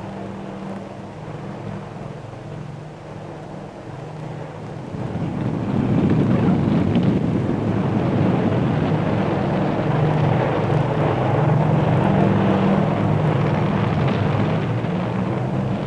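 Aircraft engine noise on a carrier flight deck during landings: a steady engine hum that grows louder and rougher about five seconds in, then holds.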